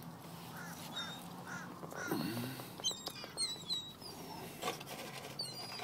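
Seagulls calling in short, repeated cries, with thinner high-pitched calls about three seconds in and again near the end.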